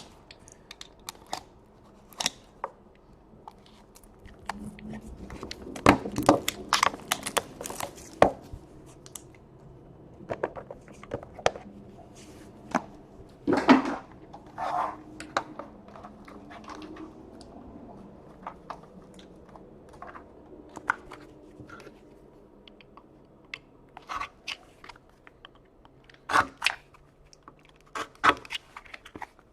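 Trading-card packaging being torn open and handled: scattered rips, crinkles and clicks, busiest a few seconds in and again about halfway.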